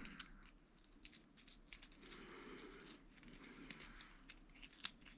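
Near silence with faint scattered clicks and light rustling, and one sharper tick near the end.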